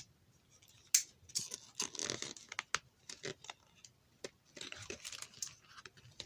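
Paper rustling and crinkling as a picture book's pages are handled and turned, with scattered short taps and clicks, the sharpest about a second in.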